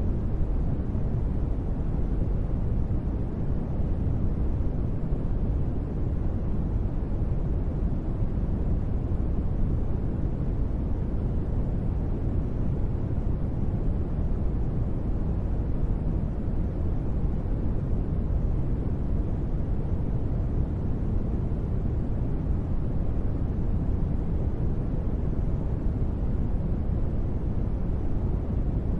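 Steady rumbling noise bed of the kind sold as white noise for sleep, deep and even, with most of its weight in the bass and only a soft hiss above; it does not change.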